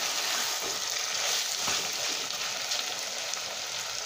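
Chopped beetroot, carrot and lemon pieces sizzling steadily in sesame oil in a clay pot, cooking down in the lemon juice with no water added. A spatula stirs them at first, with a few faint scrapes.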